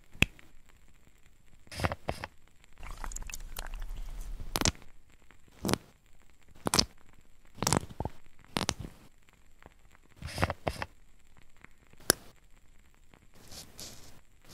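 ASMR foley of nail-care tools and bottles being handled: separate sharp clicks and taps a second or two apart, with a longer rustling scrape about three to five seconds in.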